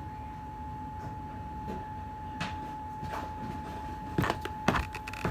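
Clicks and knocks of hand tools being rummaged and handled, a few scattered and then several close together about four seconds in, over a steady faint high whine.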